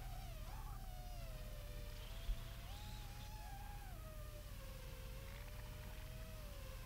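FPV racing quadcopter's brushless motors whining, the pitch rising and falling with the throttle, then settling lower and steadier in the second half. A single short knock about two seconds in.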